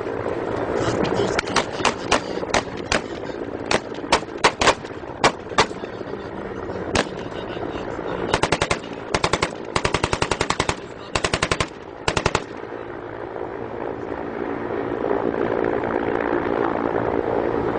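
Small-arms gunfire: single shots fired irregularly for several seconds, then several rapid bursts of automatic fire. The shooting stops about two-thirds of the way through, leaving a steady background rumble.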